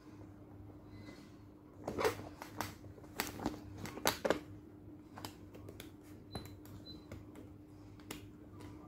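Sharp clicks from a gold metal bag clasp being pressed and worked with the fingers: a cluster of loud clicks about two to four and a half seconds in, then lighter ticks.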